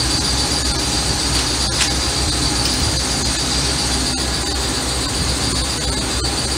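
Steady machine noise with a constant high whine over it, and a faint click about two seconds in.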